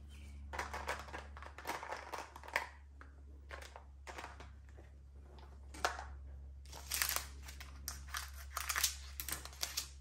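Small plastic bags of diamond-painting drills crinkling and rustling as they are handled, with light clicks of small plastic storage containers. Near the end, scissors cut through a strip of paper labels.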